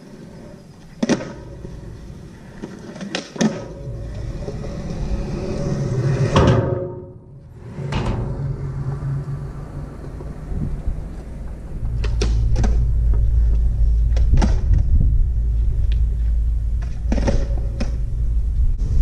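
Skateboard wheels rolling on concrete with a low rumble that grows louder in the second half, broken by several sharp clacks of the board popping and landing.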